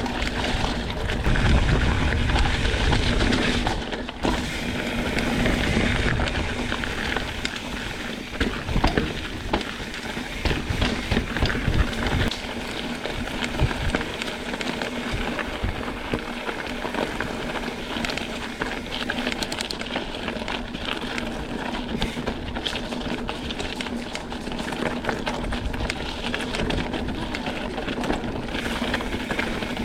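Mountain bike ridden over a rocky trail: tyres rolling and crunching over rock, the bike rattling and knocking over bumps, with wind buffeting the microphone, strongest in the first few seconds.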